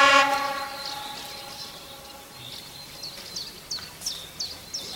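A single blast from the horn of the 810-series railbus, loudest at the start and fading over about a second and a half as the railcar approaches the station. Short, high, falling chirps repeat about three times a second around it, likely a bird calling.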